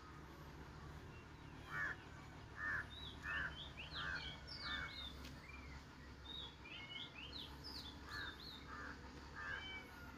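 Birds calling: a run of five short, sharp calls over about three seconds, then three more near the end, mixed with higher twittering chirps over a faint steady low hum.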